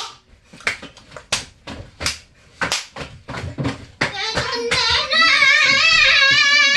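A quick series of short, sharp hand hits, about two to three a second, then from about four seconds in a voice holding one long, wavering high note that stops abruptly at the end.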